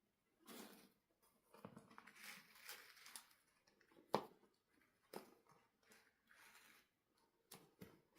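Quiet handling sounds of toys or packaging: soft rustles and scattered clicks, with one sharper click about four seconds in.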